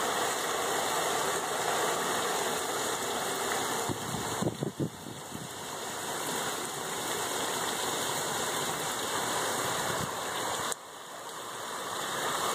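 A car driving slowly through deep standing floodwater on a street, its tyres pushing up a steady rushing wash of water over the engine. The noise dips briefly about four seconds in, drops off suddenly near the end and then builds again.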